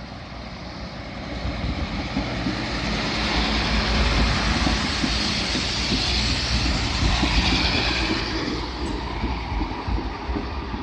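Koleje Dolnośląskie SA134 diesel railcar running past at close range: engine drone and wheels rumbling on the rails, growing louder over the first four seconds and easing off after about eight.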